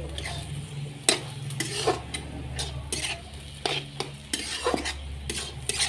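Metal spatula stirring mustard greens and lentils in a metal kadai, scraping and knocking against the pan at an uneven pace of about one or two strokes a second, with a light frying sizzle. A low steady hum runs underneath.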